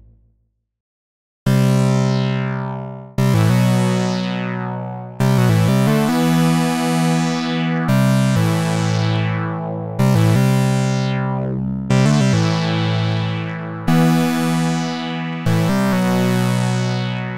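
Trueno hybrid analog synthesizer playing a slow progression of sustained chords, a new one struck about every two seconds after a short silence. Each starts bright and darkens as it holds, its filter closing.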